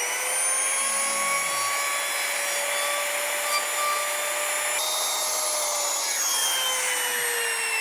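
Trim router running with a steady high whine as it cuts a shallow hinge mortise in the box's timber edge. About five seconds in it is switched off and the whine falls slowly as the motor runs down.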